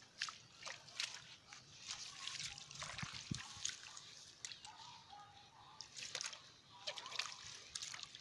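Shallow muddy water sloshing and splashing as bare feet and hands wade and dig through it, with many small splashes and drips in quick succession.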